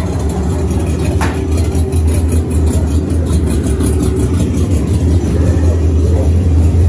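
A loud, steady low rumble like an idling engine, with a single sharp click about a second in.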